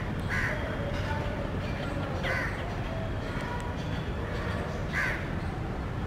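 Three short, harsh bird calls about two seconds apart, over a steady low background rumble.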